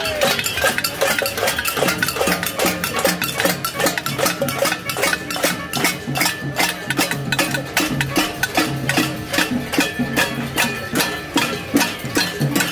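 Many marchers banging on pots and pans: a dense, irregular clatter of metal strikes, several a second, with some ringing.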